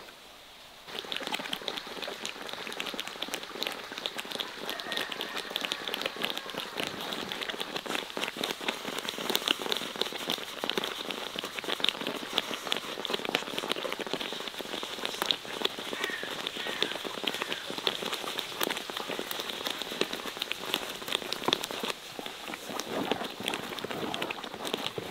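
Thick cherry plum sauce boiling in a large metal pan: a dense crackle of bubbles bursting and popping, starting suddenly about a second in.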